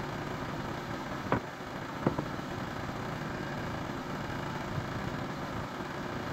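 Portable bandsaw sawmill's engine idling steadily. Two sharp knocks a little over a second and about two seconds in, from sawn boards being handled on the mill bed.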